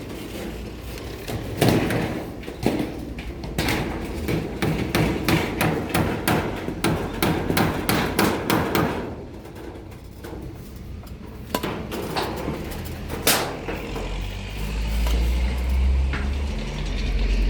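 Hammer blows on roofing during a roof repair: a quick run of strikes, a few a second, for the first half, then scattered single blows, one of them loud. A low rumble rises near the end.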